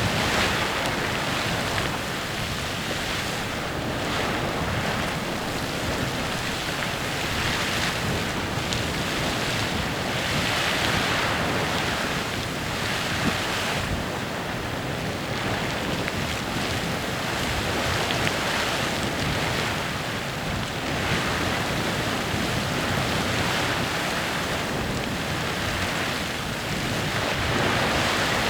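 Clepsydra Geyser erupting steadily, its water and steam jets making a continuous hissing, splashing rush that swells and eases every two to three seconds.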